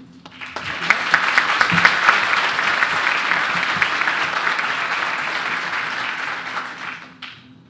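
Audience applauding. It swells up in the first second, holds steady, then dies away near the end.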